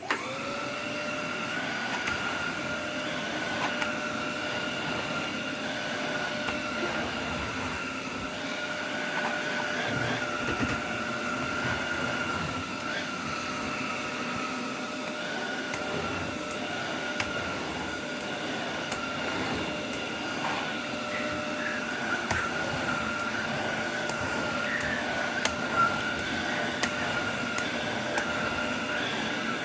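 Bush multi-cyclonic bagless cylinder vacuum cleaner switched on, its motor spinning up to a steady, high whine and running on while vacuuming, with occasional faint clicks.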